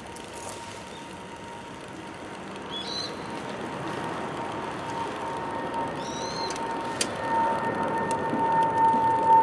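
Wood fire burning in a Winnerwell Nomad View stainless steel tent stove, with a steady whistling tone that grows louder from about halfway in. Two short bird chirps, near a third of the way in and again about two-thirds in.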